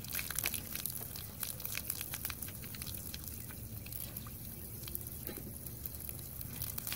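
Water from a garden hose splattering onto a wet concrete driveway: a steady patter of small splashes.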